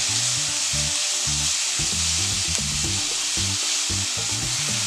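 Cubed pork sizzling steadily in a hot dry saucepan while a wooden spatula stirs it, with a few light scrapes. The pork is rendering out its own fat, with no oil added.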